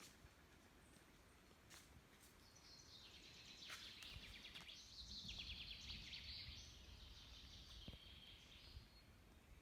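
Faint birdsong: high, rapid trills with a couple of downward-sliding notes, starting about two and a half seconds in, over a faint low rumble.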